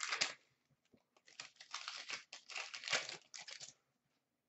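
A 2015-16 Upper Deck Champs hockey card pack's wrapper being torn open and crinkled: a couple of seconds of irregular crinkling bursts.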